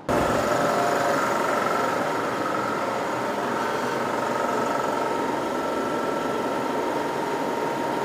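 Steady machine noise, an even whir with a faint high hum in it, cutting in suddenly at the start.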